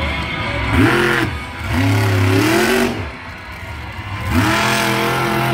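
Monster truck engine revving hard three times, the pitch climbing and falling with each rev.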